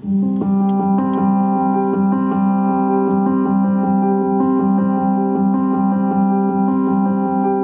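Music playing through a Mercedes-Benz's Harman Kardon premium sound system, heard inside the cabin with the equalizer set flat. It starts suddenly at the beginning as a melody of held, pitched notes.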